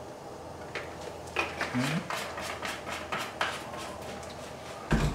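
Gas stove burner igniter clicking, a run of sharp, evenly spaced ticks about four a second, as the burner under a stainless steel skillet is lit. A dull knock near the end.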